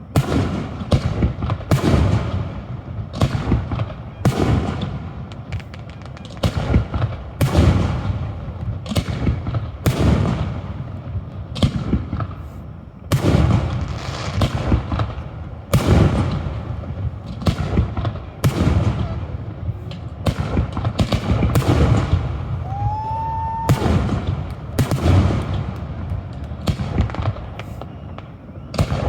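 Fireworks display: aerial shells bursting one after another, about one boom a second, each fading out before the next. A short rising whistle sounds about two-thirds of the way through.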